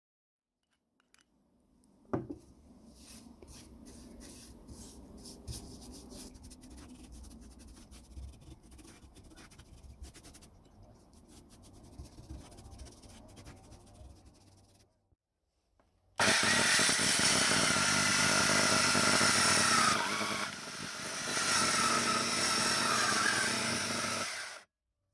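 A paintbrush rubbing wood stain onto boards, with small scrapes and taps. About sixteen seconds in, a handheld electric circular saw starts and runs loudly for about eight seconds, dips briefly partway through, then cuts off suddenly.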